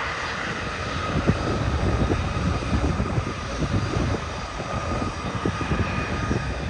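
Airliner's engines under takeoff power as it climbs away: a low, crackling rumble, with a faint high whine that fades.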